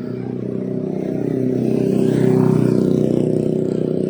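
A motor vehicle's engine running close by, growing louder to a peak about halfway through and then easing off, as if passing.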